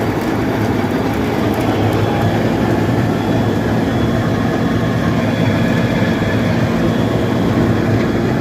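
One-metre wheeled road planer (cold milling machine) running under load as it mills asphalt off the road surface: a loud, steady diesel machine noise that holds level throughout.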